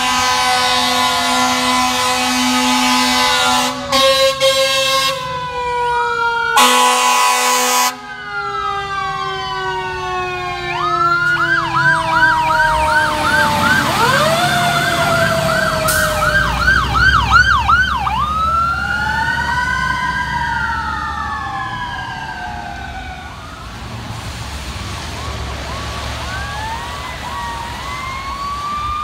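E-One fire trucks responding with sirens and horns. Three long air-horn blasts come in the first eight seconds, over a siren winding slowly down in pitch. An electronic siren then runs a rapid yelp as an engine passes, changes to a slower rising and falling wail, and fades.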